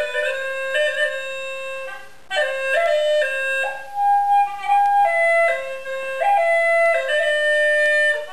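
Hulusi (Chinese gourd flute) playing a slow melody of held notes, with a short break about two seconds in.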